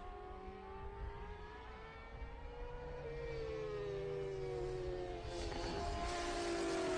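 1000 cc superbike racing motorcycle engines at high revs, the pitch climbing slowly and then dropping about three seconds in; the sound grows louder toward the end as a bike comes closer.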